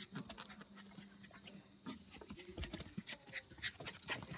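Scattered sharp clicks of a lamb's hooves on a concrete patio, mixed with short sounds from a small dog playing with it.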